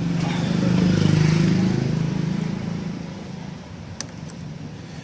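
A motor vehicle's engine passing by, its hum swelling to a peak about a second in and then fading away. A single sharp click near the end.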